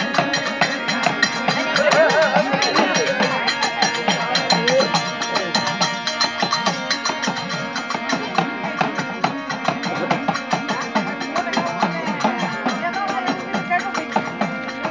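Traditional devotional folk music, with fast, steady percussion and a wavering melodic voice or instrument over it.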